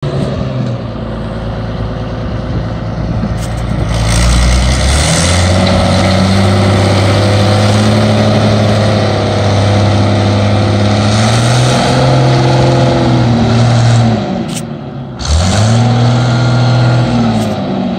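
Mid-1980s Fiat DT tractor's diesel engine, with a loud exhaust note, working while plowing snow. It runs low for the first few seconds, then revs up and holds high. It drops off briefly about fourteen seconds in, revs up again, and eases down near the end.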